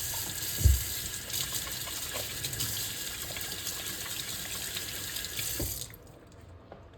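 Kitchen tap running into the sink as hands are washed, with a thump about a second in; the water is turned off about six seconds in.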